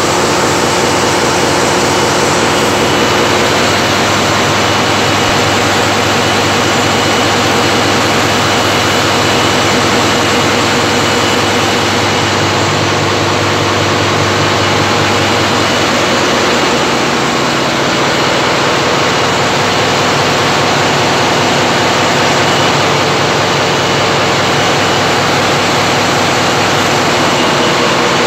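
Large diesel engine running steadily: a loud, even drone with many steady tones, its low hum dropping a little about 16 seconds in.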